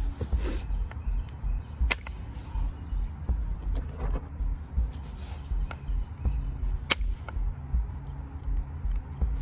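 Sharp clicks of a moose antler or billet striking a copper-nail punch set on a limestone biface, driving off small flakes. A few single strikes, several seconds apart.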